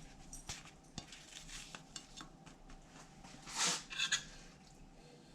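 Kitchen clatter of utensils and dishes: scattered light knocks and clicks, then a louder scrape about three and a half seconds in and a few clinks just after.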